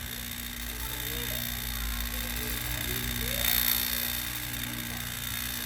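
Refrigeration vacuum pump running steadily with a light rattle as it evacuates a refrigerator's sealed system. The rattle is the sign that the vacuum is nearly complete.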